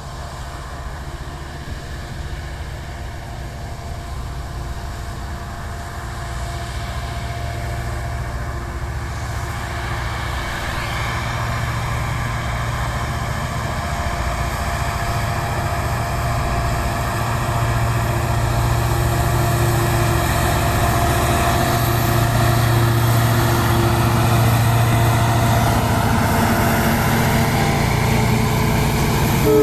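EMD WDG4 diesel-electric freight locomotive's 16-cylinder two-stroke engine humming under load as it hauls loaded goods wagons. The deep hum grows steadily louder as it approaches, with a whine joining it about a third of the way in.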